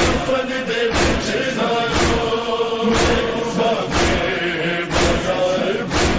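A lament (noha) chanted by a voice over a steady beat of thumps, about one a second.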